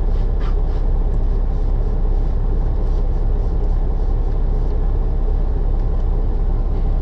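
Semi-truck diesel engine idling steadily, a low rumble heard inside the cab.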